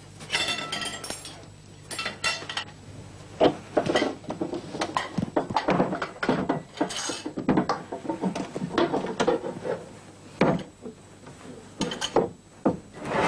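Crockery, glassware and cutlery clinking and knocking as dishes are handled on a dining table: a string of irregular clinks and knocks.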